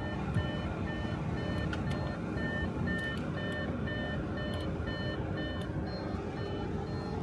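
Short electronic beeps repeating about twice a second at a few different pitches, over a steady low rumble.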